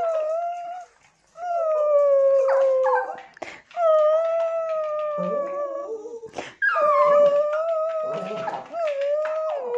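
Small house dog howling in a series of long drawn-out calls, about five in a row, with lower whining between them.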